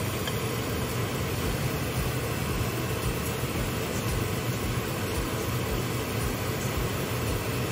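A pan of oily sauce bubbling on the stove: a steady hiss of simmering with a low, steady hum beneath it.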